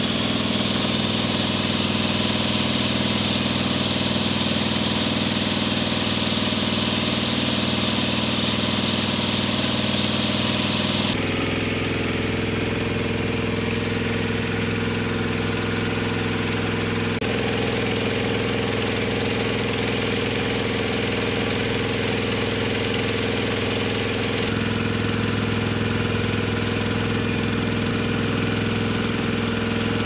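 Motorboat engine running steadily under way, with a high hiss over it. Its tone jumps abruptly a few times.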